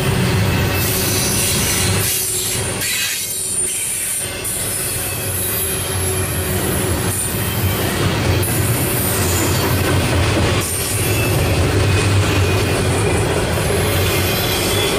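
Double-stack container well cars of a freight train rolling past close by: a steady rumble of steel wheels on the rails, with brief high-pitched wheel squeals now and then.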